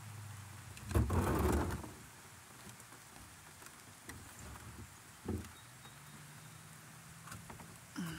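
Light rain falling, with scattered drops ticking and a low steady hum underneath. A brief loud rush of noise about a second in, and a couple of small knocks later.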